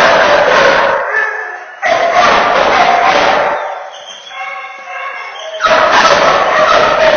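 A dog barking and yipping in three loud stretches, with quieter gaps between.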